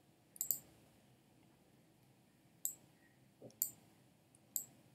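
Computer mouse clicking: a handful of separate sharp clicks, two close together near the start and the rest about a second apart, with quiet room tone between them.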